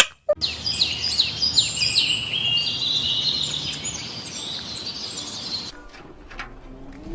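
Small birds chirping: many quick, high, downward-sweeping notes over a steady hiss, cutting off suddenly near the end, followed by a few faint clicks.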